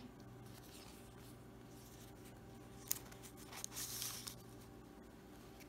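Faint rustle of paper as a paper tag is slid back into a glassine bag, with a light tick just before it, over a low steady hum.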